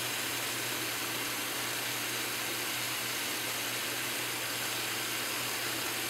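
Kitchen faucet running full on hot, the stream splashing into a stainless-steel sink with a steady, even hiss.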